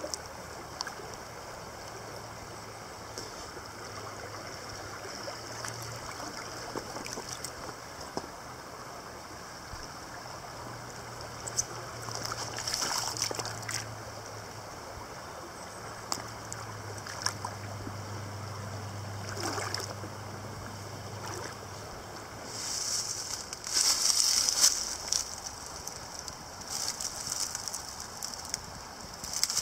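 Creek water running steadily while a heavy magnet on a rope splashes in and is dragged back through the shallow, rocky water. Near the end come crunching footsteps through dry leaves.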